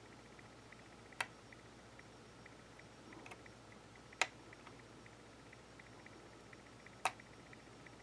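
Small metal screwdriver on the tiny gearbox screws of a brass N scale locomotive: three sharp little clicks, about three seconds apart, as the screw is adjusted, over a quiet background.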